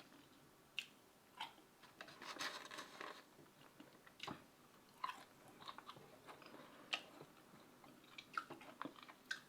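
A person chewing and biting food close to the microphone: faint, scattered wet mouth clicks and small crunches, a little louder about two to three seconds in.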